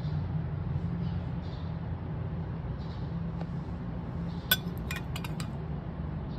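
A metal spoon clinks against a ceramic plate: one sharp clink about two-thirds of the way through, then a few quicker light clinks, over a steady low hum.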